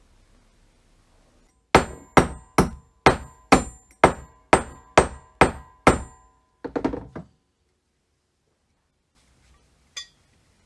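Ten sharp hammer blows on metal at about two a second, each with a short metallic ring. A brief rattle follows, and a single small click comes near the end.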